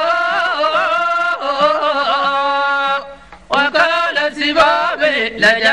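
A man singing a Sudanese haqiba song in Arabic, drawing out long, wavering ornamented notes, with a short break about three seconds in before the singing resumes.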